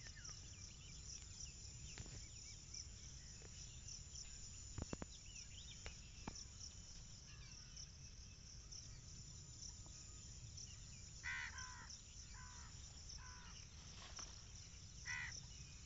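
Insects trilling steadily in a high, pulsing chorus, with a bird calling in short bursts a few times near the end and a couple of faint clicks about five seconds in.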